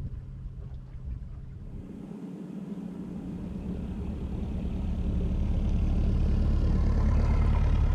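Narrowboat diesel engines running at cruising pace. From about two seconds in the sound swells steadily as another narrowboat passes close alongside.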